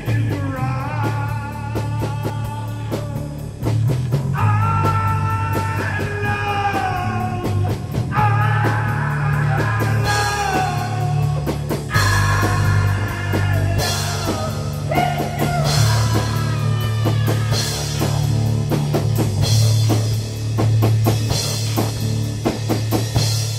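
Rock music with a drum kit keeping a steady beat under a melodic guitar line.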